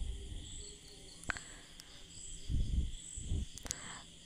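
A spoon stirring wheat flour and curd in a stainless steel bowl: soft scrapes and knocks against the bowl, with a sharp click about a second in and another near the end. A faint, high, evenly pulsing chirp runs behind it.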